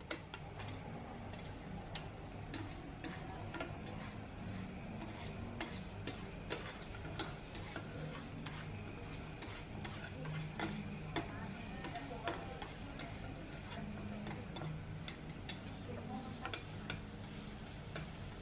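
Meat sizzling on a tabletop grill, with frequent light clicks of tongs and utensils against the grill and dishes.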